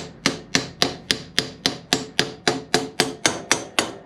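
Hammer tapping the rear axle of a 2001 Harley-Davidson Road King to drive it out of the swingarm and wheel: a steady run of quick ringing strikes, about four a second, which stop near the end.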